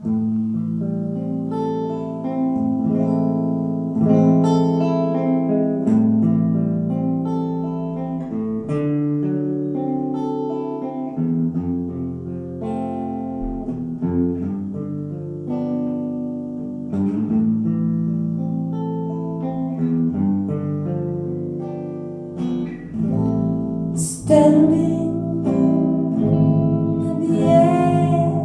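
A small band playing a slow song's instrumental opening, led by acoustic guitar chords with held notes that change every second or two.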